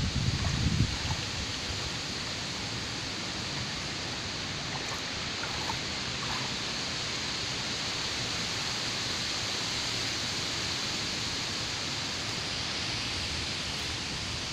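Wind blowing across a lake, buffeting the microphone for about the first second, then settling into a steady, even rush of wind and choppy water.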